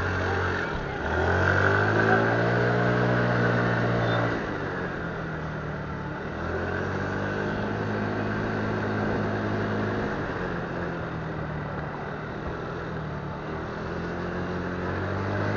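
Motorcycle engine pulling away, its pitch rising for about three seconds, then easing off about four seconds in and running steadily at low speed.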